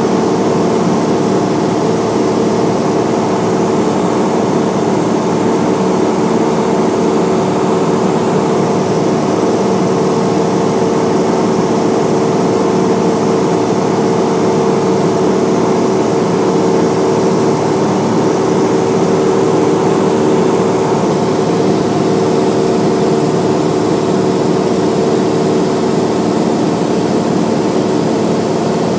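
Cessna light aircraft's piston engine and propeller running at a steady drone, with no change in pitch or loudness.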